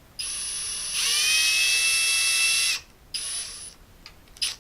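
Electric drill-driver driving a screw into a ceiling mounting plate. It starts at low speed, then speeds up to a steady high whine for about two seconds and stops. A short second run and a brief blip of the trigger follow near the end.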